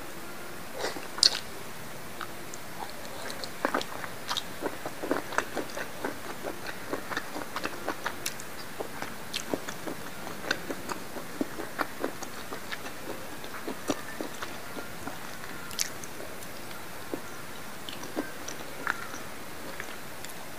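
Close-miked mouth sounds of biting and chewing grilled cuttlefish: a string of short wet clicks and smacks, with a sharp louder bite about a second in, over a steady hiss.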